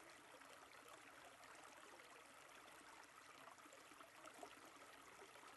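Near silence, with a faint, steady wash of running creek water.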